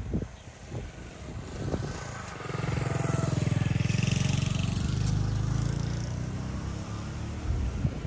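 A motor vehicle's engine passing close by: it comes in about two and a half seconds in, is loudest for a couple of seconds, then slowly fades away.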